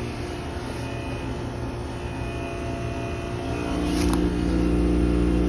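Heat pump outdoor unit running in defrost with a steady compressor hum. About three and a half seconds in the hum grows louder, with a brief hiss near four seconds.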